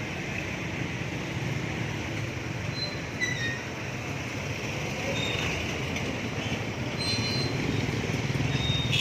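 Steady engine hum and road noise of a vehicle moving through town traffic, with a few short high-pitched squeaks about three seconds in and again around seven seconds.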